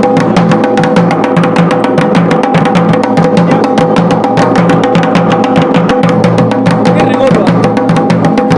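Garhwali dhol played hard in a fast, continuous rhythm of rapid strokes, with a steady held tone sounding underneath.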